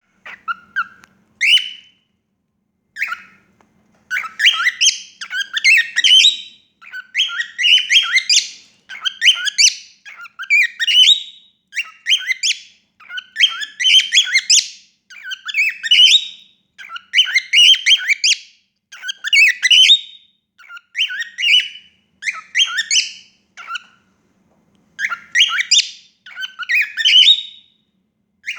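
Female cockatiel calling over and over: high, warbling chirps and squawks in bursts of about one a second, with a couple of brief pauses in the first few seconds.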